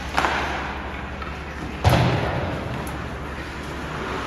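Ice hockey play heard from rinkside: a thud just after the start and a louder bang against the rink boards about two seconds in, ringing through the arena, over a steady low hum.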